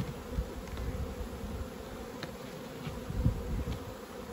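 Honeybees buzzing around a hive in a steady hum, with a couple of short low thumps, the louder one about three seconds in.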